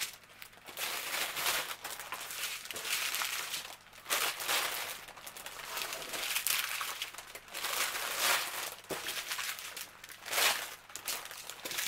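Crinkling and rustling of plastic as a pile of small plastic packets of diamond-painting drills is scooped together and shaken in a clear plastic bag, in repeated uneven surges.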